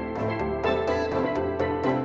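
Instrumental background music with layered sustained notes over a light steady beat.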